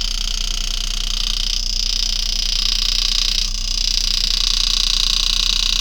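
Powered engraving handpiece buzzing steadily with a high whine as its graver cuts a small scroll into a coin, easing off briefly twice.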